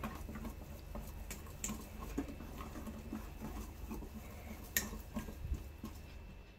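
Wire whisk beating thick batter in a stainless steel bowl: a faint, wet irregular patter with a few sharper clicks of the wires against the bowl, stopping near the end.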